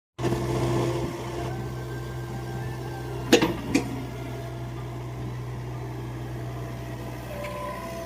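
Engine running at a steady low drone, with two sharp knocks half a second apart a little over three seconds in.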